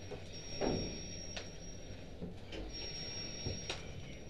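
Scattered knocks and clanks from a firefighter's gear and equipment, over a faint steady high-pitched whine that cuts out and back in a few times.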